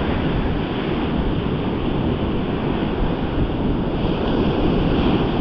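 Ocean surf breaking and washing up a beach, a steady churning rush, with wind buffeting the microphone.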